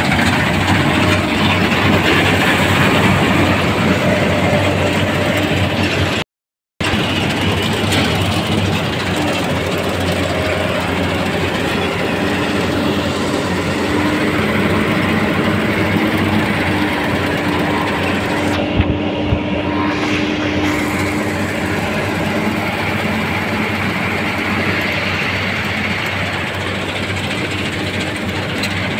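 New Holland combine harvester running while harvesting chickpeas: a loud, steady drone of its engine and threshing machinery. The sound drops out completely for about half a second around six seconds in.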